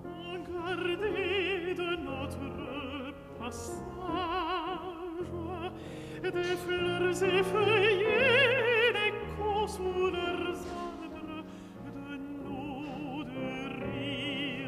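Classical recording of an operatic voice singing with a wide vibrato over sustained instrumental accompaniment, swelling to its loudest, highest note about eight seconds in.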